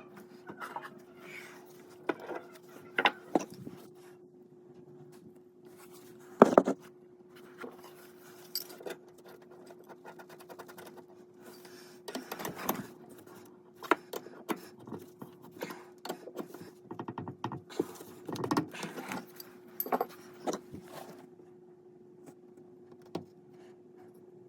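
Irregular metallic clicks, clinks and knocks of plumbing fittings and hand tools being handled while new angle stop valves and supply lines are fitted, over a steady low hum.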